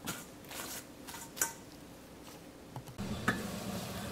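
Faint crinkles and light taps as plastic wrap is pressed down over a stainless-steel bowl. About three seconds in, a steady low rush starts from a steel pot of water heating on the stove.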